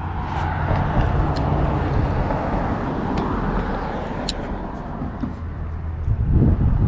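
Road traffic passing: a steady rush of cars that swells about a second in, with a few faint clicks. Near the end wind buffets the microphone with a low, uneven rumble.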